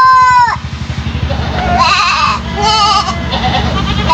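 A three-month-old goat kid bleating in an unusual voice. A long, steady call ends about half a second in, followed by two shorter calls with a wavering pitch around two and three seconds in. A steady low rumble runs underneath.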